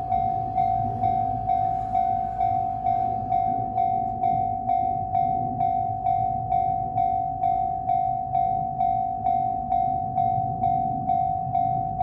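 Japanese railroad crossing warning bell ringing steadily, one tone struck a little over twice a second, each strike dying away quickly. A low rumble sits underneath.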